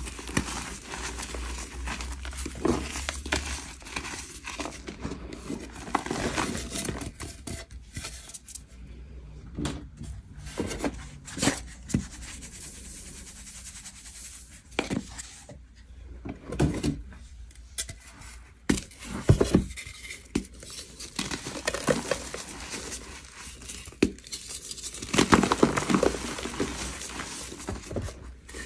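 Gym chalk being crushed by hand: dry crunching and crackling as chunks break between the fingers and powder sifts down. The crackling thins out for a quieter stretch in the middle and thickens again near the end.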